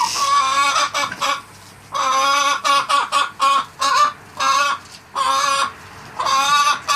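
Dorking chicken calling loudly in a run of about a dozen short squawks, each a fraction of a second, coming in quick groups with brief pauses between them.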